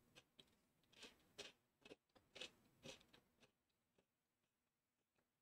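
Faint crunching as a chocolate-coated wafer pillow with salted-caramel filling is chewed: an irregular run of crunches that thins out after about three and a half seconds.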